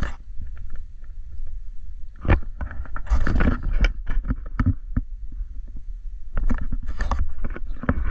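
Footsteps on a wooden cabin floor and the rustle and knock of a handheld camera being carried through a boat's interior, in irregular clusters over a steady low rumble.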